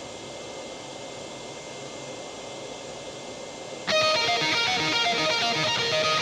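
A steady airy hiss, then about four seconds in a heavy rock track starts abruptly with a picked electric guitar riff.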